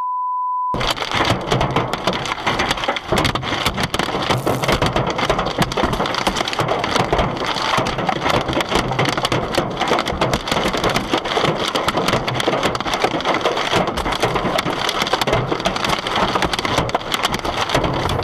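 Hailstones pelting a car in a dense, loud clatter of hard impacts. Right at the start, a short steady beep tone cuts in over silence for under a second.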